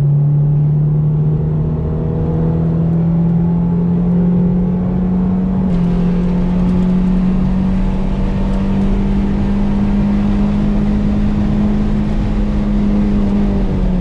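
Toyota MR2's mid-mounted engine heard from inside the cabin under hard track driving, its note climbing slowly for the first few seconds, then holding at steady high revs.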